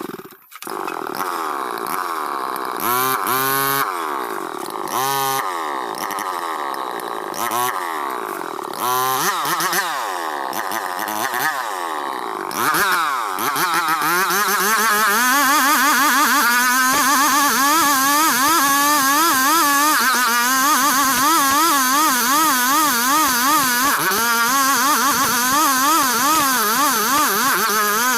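Petrol chainsaw revved in several short bursts, then held at full throttle from about halfway in, its pitch wavering rapidly as it saws through dense ulin (Borneo ironwood).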